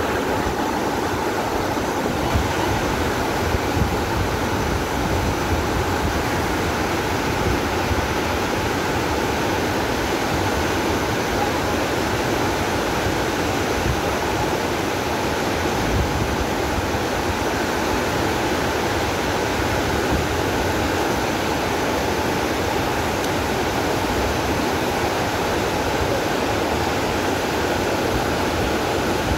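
Nyahururu Falls heard close up from below: a steady, loud rush of falling water with no break.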